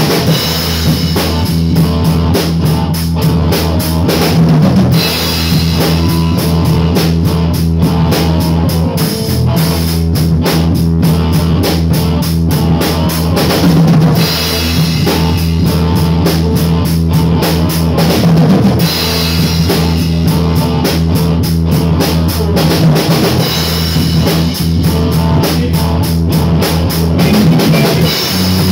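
A rock band playing live: drum kit with bass drum and cymbals under sustained low guitar and bass notes, loud and continuous.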